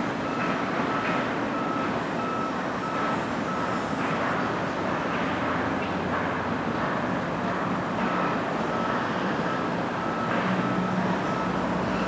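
A vehicle's backup alarm beeping in an even, steady rhythm, a little under two beeps a second, over a steady wash of machinery and traffic noise. A low engine hum joins near the end.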